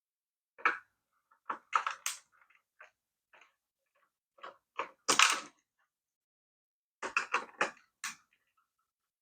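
Plastic parts of a toy radio-controlled car being handled and worked apart: scattered clicks and clatters, loudest about five seconds in, with a quick run of clicks near the end.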